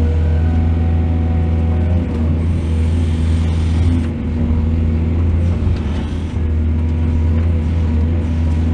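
Excavator's diesel engine running steadily: a deep, even drone with a few brief dips in level.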